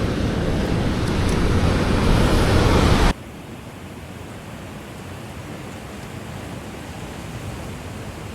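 Wind and surf noise, a loud steady rushing that cuts off abruptly about three seconds in to a quieter, steady hiss.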